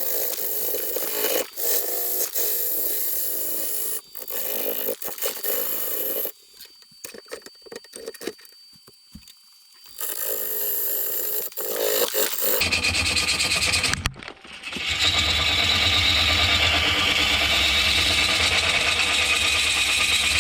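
Gouge cutting into a spinning poplar log on a wood lathe, a rough shaving and scraping noise as the blank is roughed down to round. The cutting drops away for a few seconds near the middle, then comes back, and in the second half runs steadier and louder with a low hum under it.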